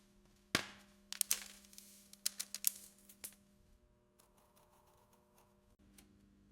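An irregular series of sharp clicks and taps, the loudest about half a second in and a cluster between about one and three and a half seconds, over a steady low hum.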